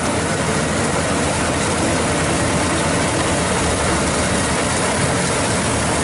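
Maxxi Bimo 102 rice combine harvester running steadily as it cuts and threshes standing paddy, its engine and harvesting mechanism making a continuous machine noise that holds level throughout.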